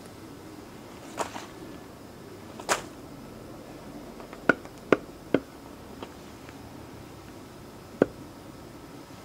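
A series of sharp knocks at uneven intervals: two single strikes early, three in quick succession about halfway through, and one more near the end, over a low steady background.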